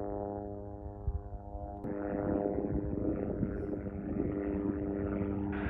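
White Knight Two carrier aircraft's four turbofan engines running on the ground, a steady drone of several even tones over a low rumble. About two seconds in it changes abruptly to a rougher, noisier engine sound.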